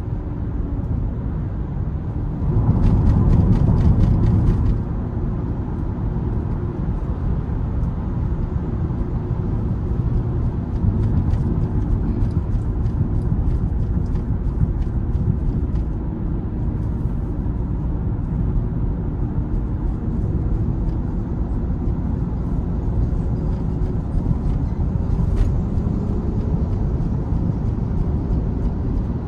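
Interior noise of a Mitsubishi Xpander cruising at highway speed: steady tyre and road rumble with a faint engine drone. The rumble grows louder for about two seconds near the start.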